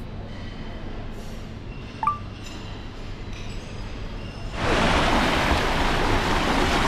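Quiet background with a few faint thin tones. About four and a half seconds in, it gives way suddenly to a loud, steady rush of water as a rider slides down an open fibreglass water slide.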